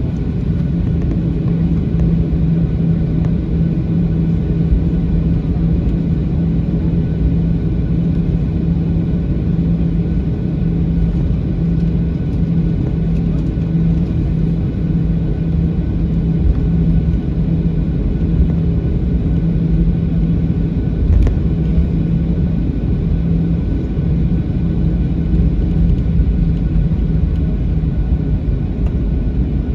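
Steady cabin rumble of a Boeing 737-800's CFM56-7B engines and airframe while the airliner rolls slowly on the ground before takeoff, heard from a window seat over the wing. A steady low hum runs under it and fades about three-quarters of the way through, and there is a single knock about two-thirds of the way in.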